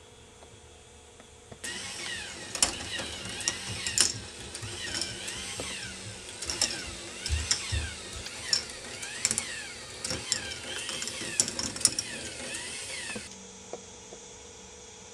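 K'nex ball machine running: plastic parts whirring, with rapid clicking and clattering of balls and pieces. It starts abruptly about a second and a half in and stops a couple of seconds before the end, leaving a low hum.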